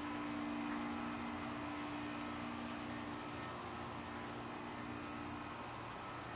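Insects chirping outdoors in an even, high-pitched rhythm of about five or six pulses a second, over a low steady hum.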